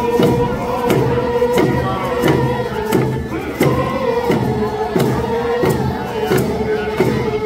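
Lummi paddle song: a group of voices chanting in unison on a steady held pitch over an even drum beat, about three beats every two seconds.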